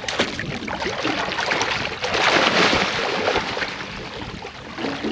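Water and wind noise around a small aluminium fishing boat, with a louder rushing splash lasting about a second, about two seconds in.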